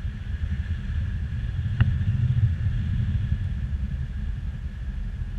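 Wind buffeting the microphone of a pole-held camera in paraglider flight: a steady low rumble, with one brief click a little under two seconds in.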